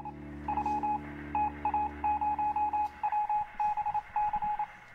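Morse code-style beeping: a single-pitched tone keyed on and off in quick irregular groups of short and long beeps, like an old radio telegraph signal, over a steady low hum that stops about three seconds in.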